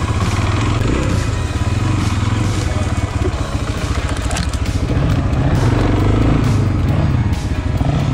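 Single-cylinder four-stroke enduro motorcycle engine running close by, its pitch rising and falling with the throttle.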